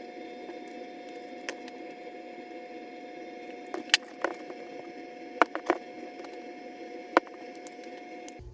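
Light clicks and knocks of small metal parts and hand tools being handled while an angle grinder is taken apart, a few scattered taps with a quick cluster in the middle, over a steady background hum.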